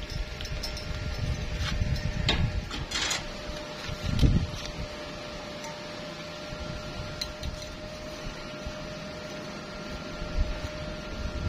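A steady machine hum with a low rumble, broken by a few knocks and clicks in the first few seconds; the loudest knock comes about four seconds in.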